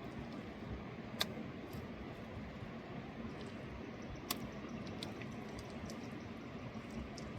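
Steady rushing of river water, with two sharp clicks, about a second in and again about three seconds later.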